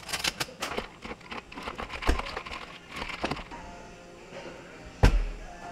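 Ice and glassware clinking while iced espresso milk drinks are made in tall glasses, with a heavier knock about two seconds in and a loud one about five seconds in, as of a glass set down on a wooden counter. Background music plays underneath.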